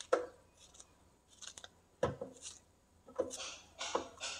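A fresh bamboo shoot being cut and trimmed: a series of short, crisp cutting strokes at irregular intervals.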